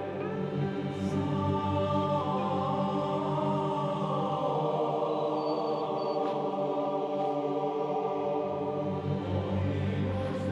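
Background music: slow, sustained choir-like chanting chords that shift in pitch now and then.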